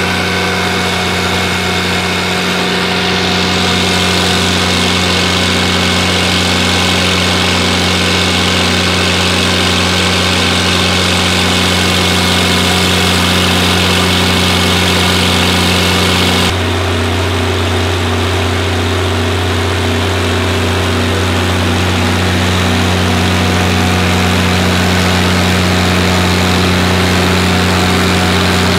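Six-cylinder stationary diesel engine running steadily under load, driving a 3300 gpm irrigation water pump through a driveshaft.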